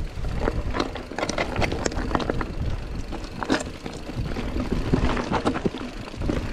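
Mountain bike rolling over a stony trail: a steady low rumble of tyres on the ground, with many quick clicks and rattles from the bike and stones.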